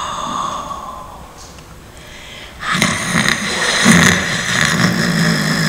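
Recorded sound-art performance audio played back over the hall's speakers: a sustained sound fades away over the first two seconds, then about two and a half seconds in a rough, low droning sound with a higher band above it starts and carries on, with scattered clicks.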